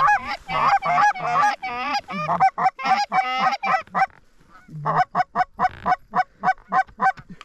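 Hunters blowing goose calls at a flock of geese: a fast run of overlapping honks and clucks, a short pause about four seconds in, then an even string of single honks, about three a second.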